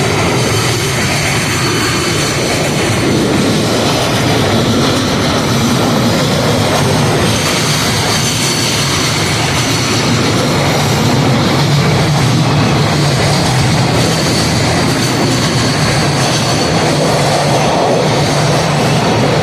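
JR Freight freight train passing close by, its wheels rolling over the rails in a steady, loud rumble that holds unbroken throughout.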